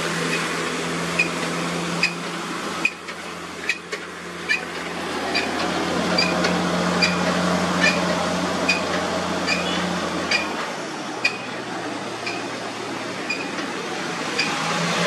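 Volvo FM420 truck's diesel engine running with a steady low drone as the loaded rig pulls away, over a constant hiss; the drone fades about ten seconds in. Short high chirps repeat about twice a second throughout.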